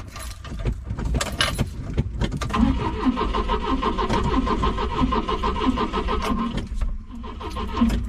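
Keys jangle at the ignition, then the classic Volvo station wagon's starter cranks the engine over steadily for about four seconds before stopping: a car that won't start.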